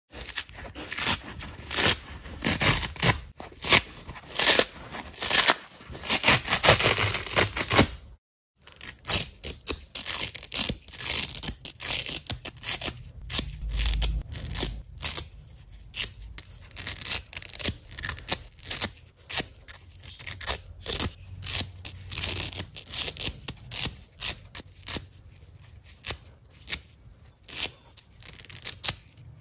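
Dry foam kitchen sponge being ripped apart by hand, a fast run of short crackling tears as the foam is pulled into small pieces. The tearing is denser and louder at first, stops briefly a little over a quarter of the way in, then goes on in sparser tears.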